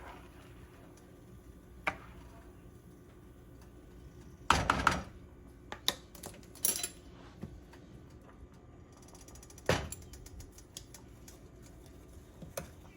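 Kitchen clatter: scattered knocks and clinks of utensils, pots and containers being handled, loudest in a short cluster about four and a half seconds in, with single knocks later.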